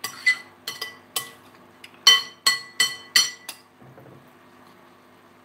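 Metal spoon clinking against a glass mixing bowl while stirring salad: about ten sharp, ringing clinks, the loudest in the middle, stopping about three and a half seconds in.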